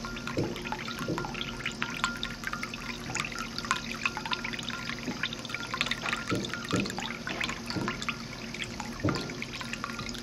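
Ceramic cat drinking fountain running: water spilling from the spout and trickling down into the bowl, with many small drips and irregular deeper plops, over a low steady hum.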